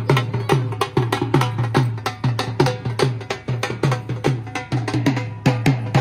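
Fast, steady drumming: deep booming beats with sharp, crisp strokes between them, in an even rhythm with little or no melody.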